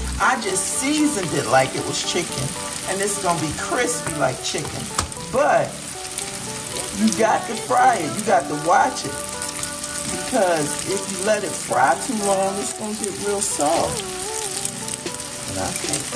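Battered cauliflower florets sizzling steadily as they shallow-fry in oil in a cast iron skillet.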